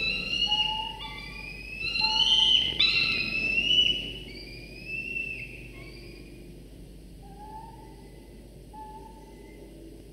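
Peregrine falcon chicks begging for food: a run of high, whistling calls that overlap one another, loudest in the first four seconds, then a few fainter, spaced calls to the end.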